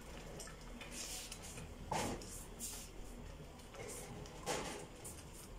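Wire whisk stirring a liquid carrot and apricot mixture in a pot: irregular swishes and scrapes against the pot, the loudest stroke about two seconds in.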